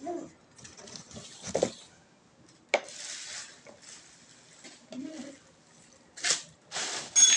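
Bike parts and packaging being handled during unboxing and assembly: rustling and scraping, a sharp click about three seconds in, and louder hissing scrapes with a short metallic clink near the end.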